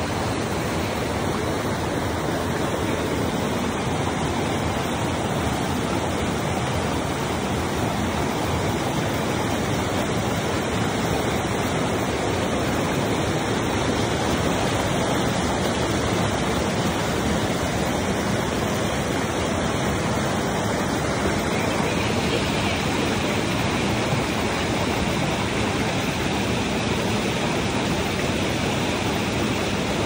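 Steady rush of a river pouring over small waterfalls and cascades between boulders.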